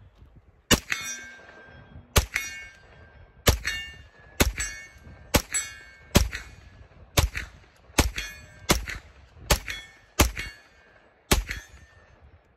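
B&T GHM9 9mm carbine firing twelve semi-automatic shots at an uneven pace of about one a second, each shot followed by a short ringing tone.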